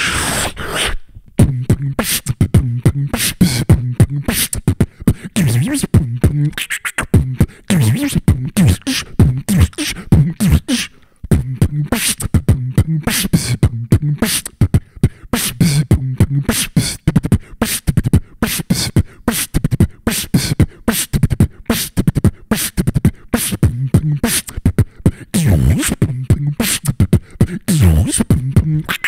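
Old-school hip-hop beatboxing, close-miked on a Shure SM58: fast, sharp mouth-made drum strokes in a steady rhythm with low hummed bass notes under them.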